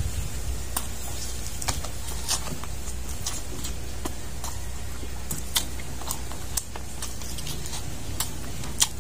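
A person eating fish and rice with their hands, mukbang style: scattered wet mouth clicks and lip smacks while chewing, one louder smack near the end, over a steady low background hum.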